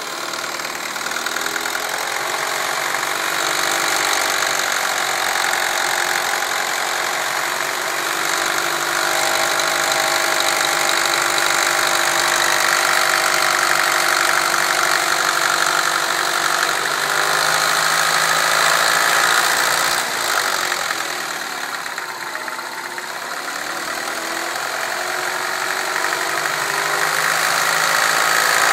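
A Mini car's engine running steadily, its pitch drifting slowly as the revs change a little, with a brief dip in level about twenty seconds in.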